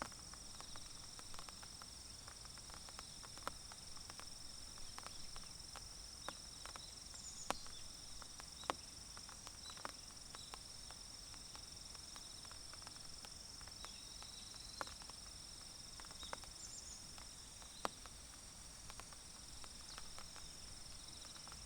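Faint, steady high-pitched trilling of insects, with irregular ticks of raindrops from a light rain falling on leaves scattered through it, and a few short high chirps.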